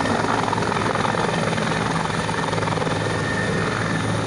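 Helicopter landing: steady rotor and turbine noise with a steady high whine, as it descends into its own dust cloud.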